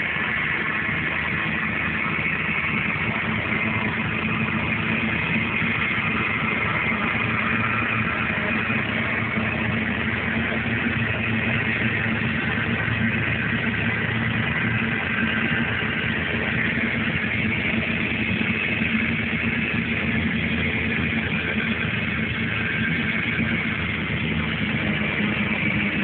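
Case IH Puma 140 tractor's six-cylinder diesel engine running at a steady pitch while pulling a slurry tanker.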